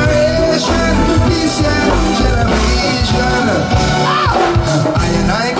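Live reggae band playing with a pulsing bass beat, and a voice singing and calling out over it, with one long rise and fall in pitch about four seconds in.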